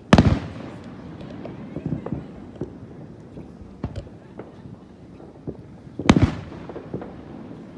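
Aerial firework shells bursting: a loud boom just as it starts and another about six seconds in, each with a trailing echo, and scattered smaller pops in between.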